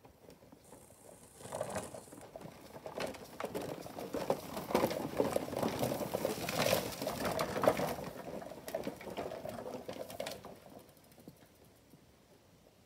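Slider trike rolling fast over bumpy grass: a clattering rattle of its hard rear wheels and frame that builds up about a second and a half in, is loudest in the middle, and dies away near the end.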